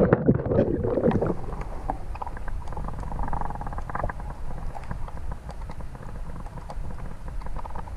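Camera going under water with a splash that fades within the first second, then muffled underwater ambience through the camera housing: a steady low rumble with scattered faint clicks.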